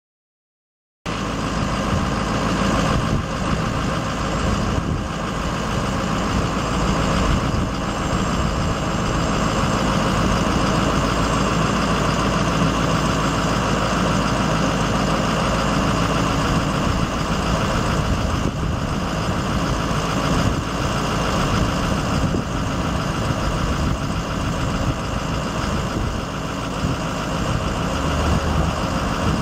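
Ford F650's International VT365 6.0 L V8 turbo diesel idling steadily, starting abruptly about a second in.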